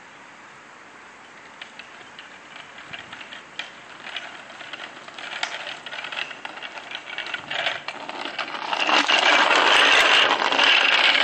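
Plastic wheels of a toy Kawasaki ride-on quad rattling and crunching over rough asphalt and dry leaves, starting faint and growing steadily louder, loudest over the last few seconds.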